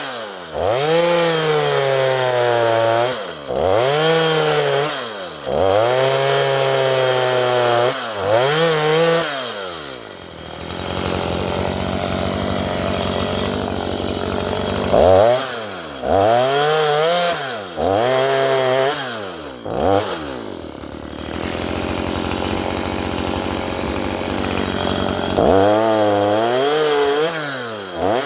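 Stihl MS 162 two-stroke chainsaw cutting lengthwise into a wooden post, its engine pitch rising and falling under load in repeated pulls about every two seconds. Twice, for about five seconds each, it drops back to a lower, steadier running between bouts of cutting.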